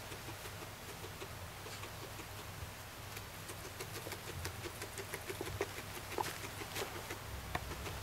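Guinea pig chewing dry hay: a quick run of small crunchy crackles and snaps, with the hay rustling. It gets busier and louder about halfway through.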